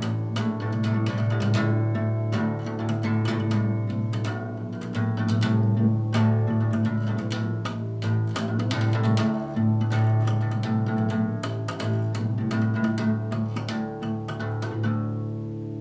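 Acoustic guitar strummed fast and hard, with low notes ringing steadily under the strokes. About fifteen seconds in the strumming stops and the last chord rings out and fades.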